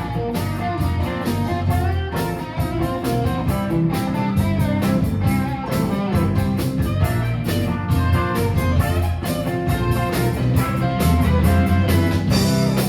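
Live rock band playing an instrumental break, with electric guitar carrying the melody over bass and a steady drum beat.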